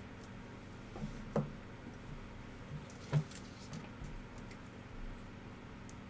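Trading cards being handled: a stack flipped through in the hand and cards set down on a tabletop. This gives a few light clicks and taps, the sharpest about three seconds in, over a faint steady hum.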